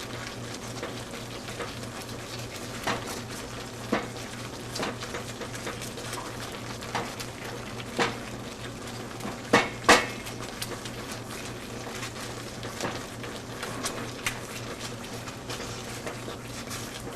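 A cooking utensil knocking and scraping in a deep frying pan as refried beans are mashed and stirred, under a steady sizzle of the beans frying in hot shortening over a high flame. The knocks come irregularly, about one every second or two, the loudest two close together near the middle.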